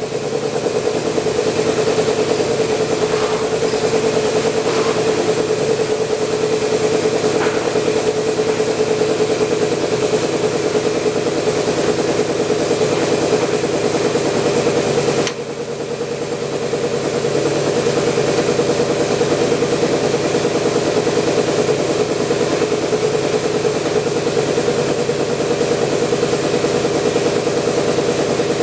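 Kippax Benchtop Model 2818 screen printing machine running with a steady mechanical hum, a strong mid-pitched tone with overtones. About halfway the sound drops suddenly, then builds back up over a couple of seconds.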